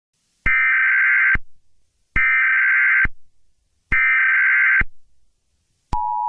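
Emergency Alert System signal: three screeching digital header bursts of about a second each, spaced about a second apart, then the steady two-tone attention signal starting near the end.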